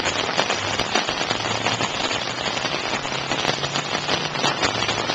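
Heavy rain falling, a dense crackle of drops striking close to the microphone, over the steady rush of floodwater flowing across the road.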